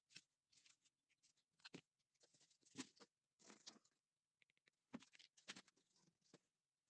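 Faint, scattered handling noises: soft clicks, taps and crackly rustles of small objects being picked up and set down on a wooden workbench, the strongest about three seconds in and again around five seconds.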